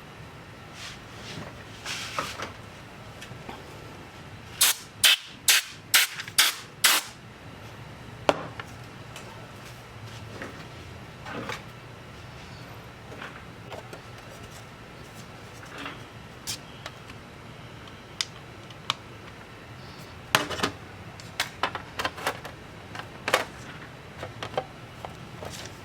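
Sharp clicks and taps of small tools and parts being handled during laptop repair work, with a quick run of about six clicks a few seconds in and more scattered ones later, over a steady low hum.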